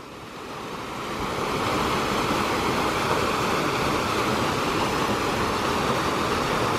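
Rock waterfall pouring into a pool: a steady rush of splashing water that swells over the first couple of seconds and then holds.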